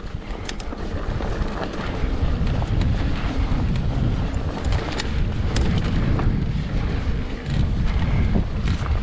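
Wind buffeting the camera microphone during a mountain bike ride, a steady low rumble, with scattered clicks and rattles from the bike and its tyres over rough dirt trail.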